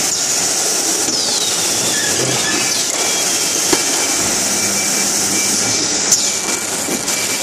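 Automatic carton packing machine on a bottled-water line running: a steady high hiss of machinery, with a falling squeal about a second in and two sharp clicks, near the middle and near the end.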